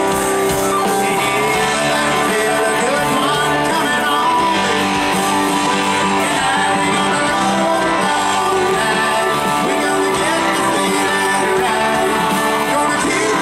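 Southern rock band playing live at full volume, led by electric guitars.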